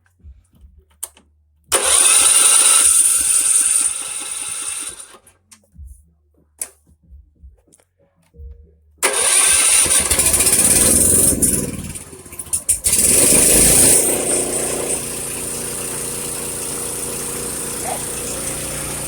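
Small gas engine driving a homemade backhoe's hydraulic pump starts, runs a few seconds and cuts out. Started again, it runs hard, stumbles, then settles into a steady idle. The stalling is what the owner traces to a soft hydraulic hose crimping shut and choking the pump's flow.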